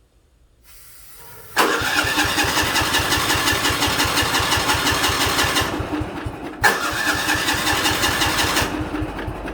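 Engine of an old Sears 10/6 lawn tractor being cranked over by its starter in two tries: one of about four seconds, a brief pause, then a shorter second try that fades out.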